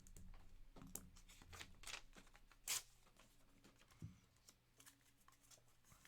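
Faint handling noise of trading cards and their packaging: a scatter of soft clicks and rustles, with a sharper click about two and three-quarter seconds in and another about four seconds in.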